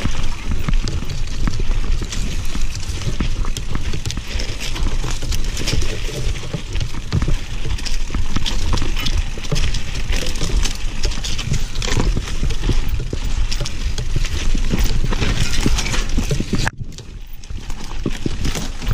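Nukeproof mountain bike rolling down a rough, dry dirt-and-rock trail: a continuous clatter of tyres crunching over stones and the bike rattling, easing off briefly near the end.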